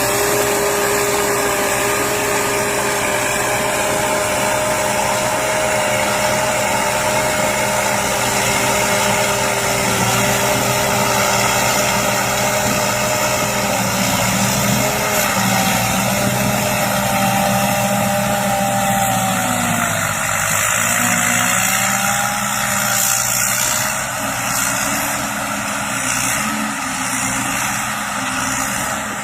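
Thai Charoen Kan Chang combine harvester running, its engine and machinery making a steady drone with a whine whose pitch shifts about halfway through.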